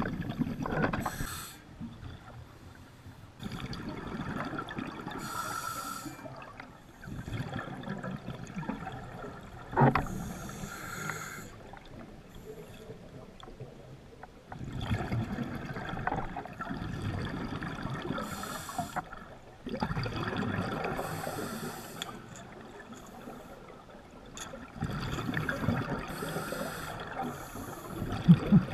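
Scuba diver breathing through a regulator underwater: a hissing draw on the air, then bubbly exhalations, repeating every few seconds.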